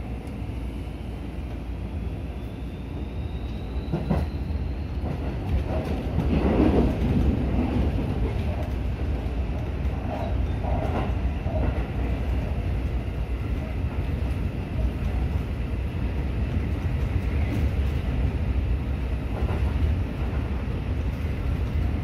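Seibu 30000 series electric train running, heard from the driver's cab as it pulls away from a station: a steady rumble with clacks from the wheels on the rails, getting louder over the first several seconds. A faint rising whine, typical of electric traction motors picking up speed, can be heard under the rumble.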